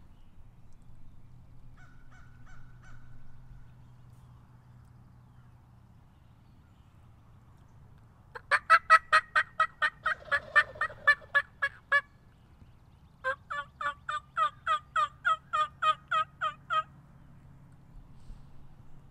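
Turkey yelping: two long, loud runs of rapid yelps, the first quicker and the second slower, with each note breaking downward. A few faint clucks come before them.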